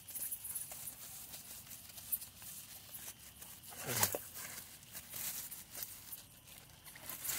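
Thin plastic bag crinkling and rustling as it is handled and unwrapped by hand, with a louder burst about four seconds in.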